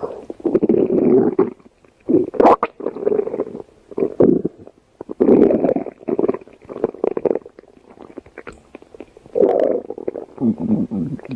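Stomach growling: a run of rumbles, each lasting from under a second to about two seconds, with short pauses between.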